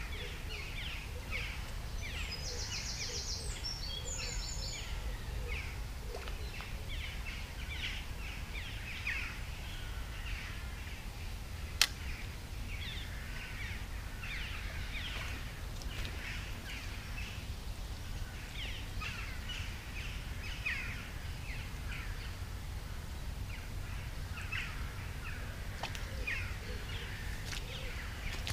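Several songbirds calling and singing with many short chirps, including a fast rattling trill about three seconds in, over a steady low rumble. A single sharp click stands out near the middle.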